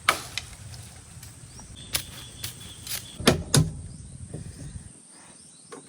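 A handful of sharp knocks or clicks, most of them in the first four seconds, over a faint steady background.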